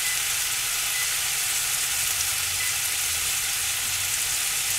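Ribeye steaks and king trumpet mushrooms sizzling steadily as they sear in a hot cast-iron skillet.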